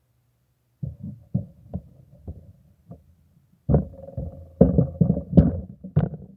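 Handling noise on a handheld camera's microphone: a string of irregular low thumps and rubbing as the camera is shifted. It starts about a second in and grows louder in the second half.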